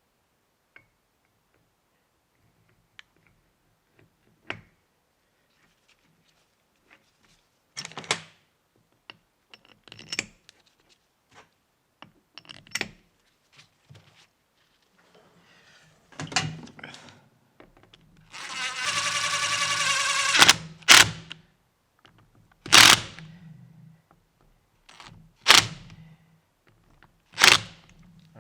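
Metal clinks and knocks of bolts and tools while caliper halves are bolted together. About two-thirds of the way in, a power tool runs steadily for about two seconds, and four short sharp knocks follow near the end.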